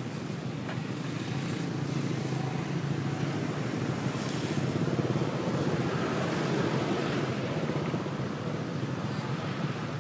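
Roadside traffic noise with a steady engine hum underneath. It swells about halfway through as vehicles pass.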